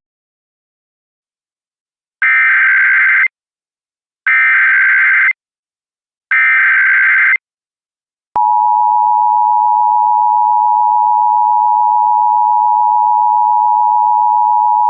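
Emergency Alert System SAME header: three one-second bursts of digital data tones, starting about two seconds in and two seconds apart, which encode the alert before it is read. About eight seconds in, the EAS two-tone attention signal (853 and 960 Hz together) starts and holds steady and loud.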